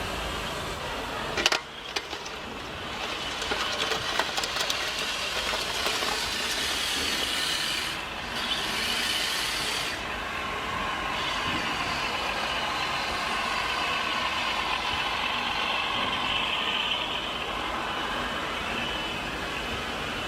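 Radio-controlled model machinery running: a steady mechanical noise with a sharp knock about a second and a half in, and a whine from about ten seconds in.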